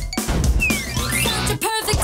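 Upbeat theme music with a drum kit playing, the music of the show's animated transition; it briefly drops out for a moment near the end, then comes back in.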